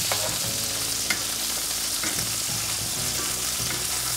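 Lamb steaks sizzling steadily in butter in a hot cast iron skillet, with a few light clicks of metal tongs as the steaks are lifted out.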